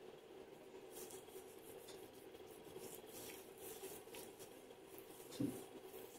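Faint rubbing and scratching of gloved hands massaging a granular gommage exfoliant over facial skin, in soft irregular strokes over a steady low hum. One short low thump about five seconds in.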